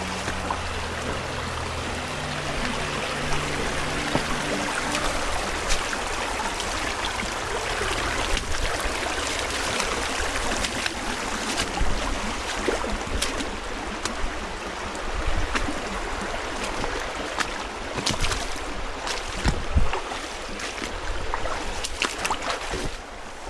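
Creek water running steadily, with scattered short snaps and knocks.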